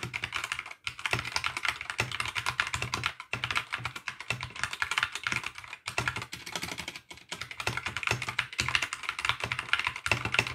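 Typing on an Akko 3084 mechanical keyboard: a fast, continuous run of key clicks with a few brief pauses.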